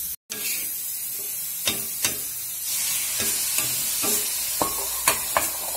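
Bitter gourd (karela) slices sizzling in hot oil on a flat tawa, with a steady hiss that grows louder about halfway through. A metal spatula scrapes and taps the pan in sharp clicks as the slices are stirred.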